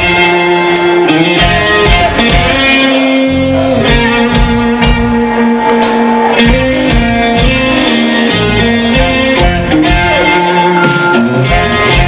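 A live rock band plays an instrumental passage without vocals: electric guitar, bass guitar and drums under long held saxophone notes.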